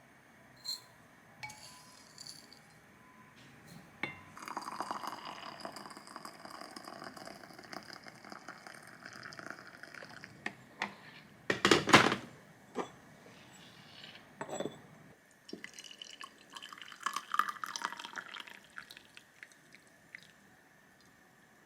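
Household kitchen sounds: glass and dishes clinking, with liquid being poured, and one sharp knock about halfway through.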